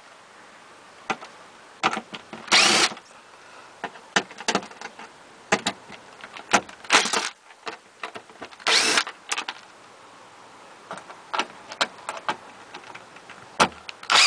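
Makita cordless driver spinning in several short bursts as it backs out the screws of a fuel pump access cover, with scattered clicks and taps between the bursts.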